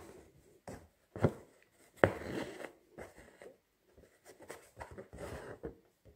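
Hand embroidery: a needle pierces cloth stretched taut in an embroidery hoop, making a few sharp taps, and silk thread is drawn through the fabric with a rasping sound, twice.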